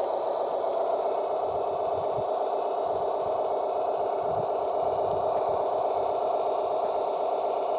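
A radio-controlled model vehicle running: a steady mechanical buzzing hum from its drive, even in level throughout.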